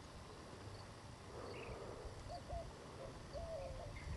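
Quiet outdoor ambience with faint calls from distant animals: a soft high chirp repeating about every two-thirds of a second, and a few brief warbling calls in the second half.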